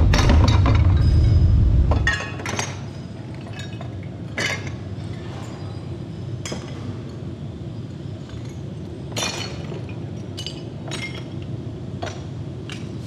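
Pieces of scrap metal clinking and clanking as they are dropped one by one into a plastic crate, at irregular intervals. A loud low rumble runs underneath and stops about two seconds in.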